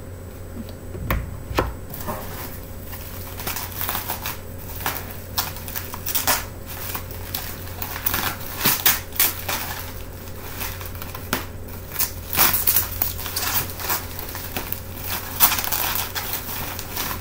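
Plastic bubble wrap crinkling and crackling in irregular sharp bursts as a packed item is pulled out and handled. There are a couple of low knocks about a second in.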